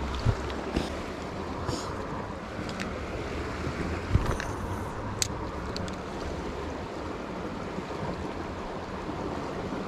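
Steady rush of a flowing trout stream, with a few light clicks.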